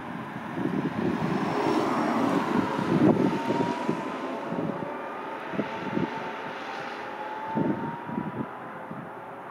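2018 BMW i8 hybrid sports car approaching and passing close by, loudest about three seconds in, then pulling away with its drive note rising in pitch as it accelerates and fades into the distance. Gusty wind buffets the microphone throughout.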